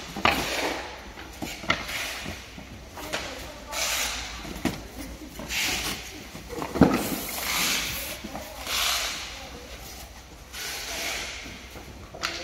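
Packing sounds of cardboard boxes and panels being handled: repeated rustling and scraping of board and plastic sheeting, with scattered knocks, the loudest about seven seconds in.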